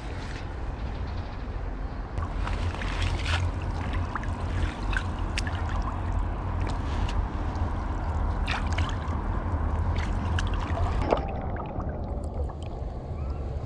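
Bare legs wading through shallow lake water, splashing and sloshing with many small splashes and clicks over a steady low rumble.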